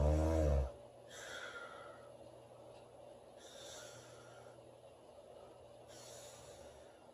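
A sleeping woman snoring: one loud, low snore lasting under a second at the start, then a long pause with only three faint breaths.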